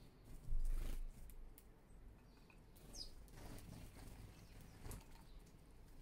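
House sparrows' wings fluttering as they fly in and land at a wooden seed feeder, loudest in a rush about half a second in, with a single short chirp about three seconds in.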